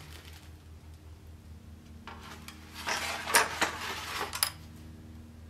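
A steel sword blade sliding into its scabbard, beginning about two seconds in: a rough scrape lasting a couple of seconds with several sharp metallic clicks against the scabbard's brass fittings.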